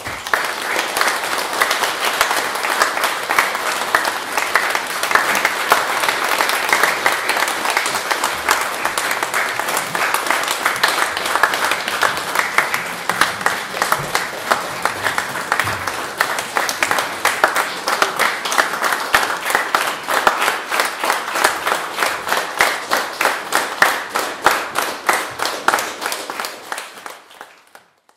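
Audience applauding; the clapping settles into a steady rhythm in unison about halfway through and fades out near the end.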